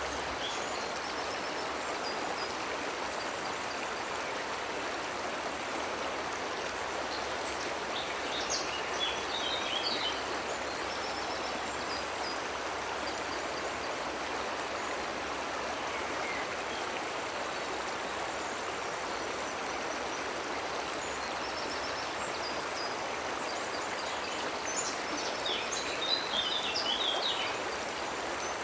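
Steady rush of a cascading waterfall and stream. Birds chirp briefly twice, about eight seconds in and again near the end.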